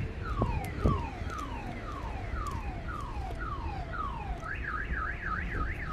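Car alarm going off, cycling through its tones: a falling whoop repeated about twice a second, then, a little over four seconds in, a fast up-and-down warble about four times a second. A single sharp knock is heard about a second in.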